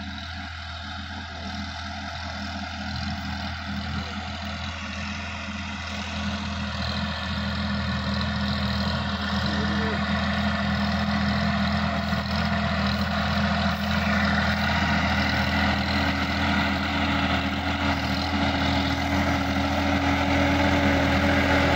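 Sonalika DI-50 RX Supreme tractor's diesel engine running steadily as it pulls a disc plough through the field, getting louder as the tractor comes closer.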